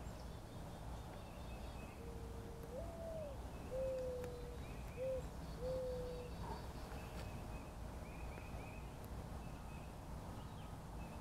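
A bird's low cooing call: one long note that rises and falls, followed by three shorter notes. Faint high chirps of other birds sound throughout, over a steady low background hum.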